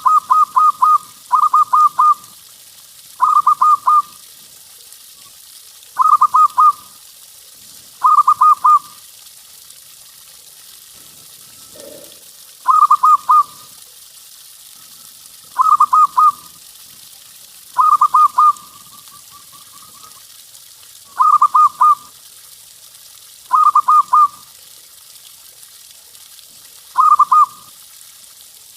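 Zebra dove (perkutut) singing: short phrases of quick, rippling coos, repeated every two to three seconds over a faint steady hiss.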